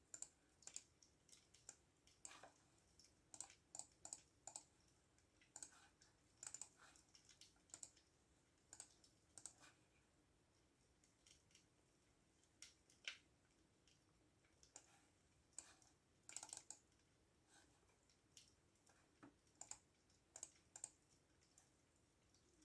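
Soft typing on a computer keyboard: irregular runs of keystroke clicks, broken by pauses of a second or two.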